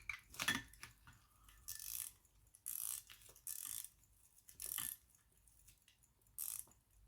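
Key-wound J W Benson silver pocket watch being wound with its key: the winding ratchet clicks in short bursts, one burst per turn of the key, several times over.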